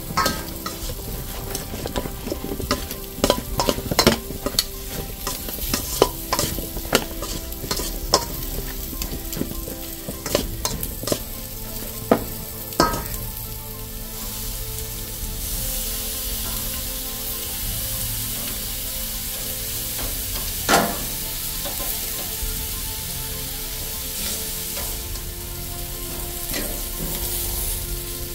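Metal tongs clicking sharply, many times, against a stainless steel bowl and a gas grill's grate as zucchini slices are laid on. About halfway through, a steady sizzle of pomfret and salmon cooking on the hot grate takes over, with one more tong click later on.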